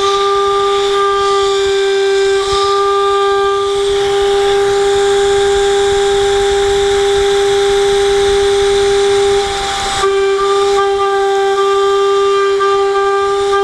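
HSD spindle of a CNC router driving an end mill through 3/4-inch 6061 aluminium plate: a steady, high-pitched cutting whine with a ladder of overtones, over the hiss of the oil mister's air. About ten seconds in, the whine wavers and briefly drops in level, then carries on.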